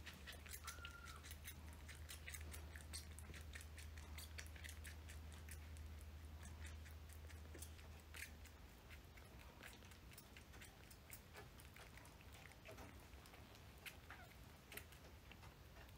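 Baby kitten suckling milk hard from a feeding syringe: quiet, quick wet sucking and smacking clicks, irregular and several a second.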